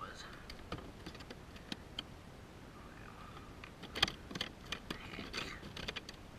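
Light clicks, taps and rustling from handling gear and a towel in a plastic fishing kayak, with a sharper knock about four seconds in followed by a quick run of taps.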